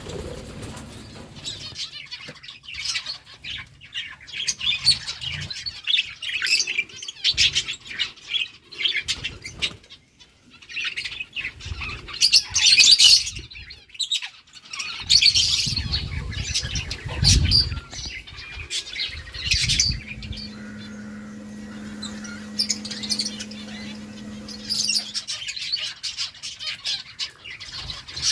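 A flock of budgerigars chirping and chattering in busy overlapping bursts, with squawks.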